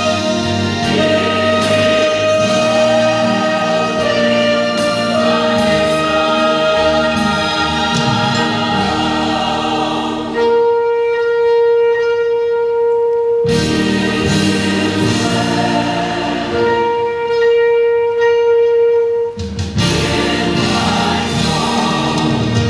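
Saxophone playing a slow melody of long sustained notes over grand piano accompaniment. Twice the piano drops out and the saxophone holds a single long note alone for about three seconds.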